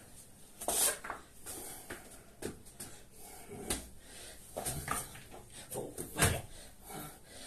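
A person doing burpees: heavy breathing mixed with irregular thuds of hands and feet landing on a rubber floor mat, the loudest thud about six seconds in.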